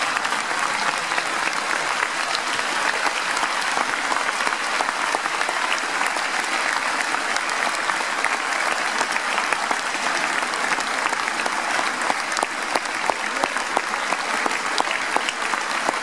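A large theatre audience clapping in a dense, steady round of applause that keeps going without a break.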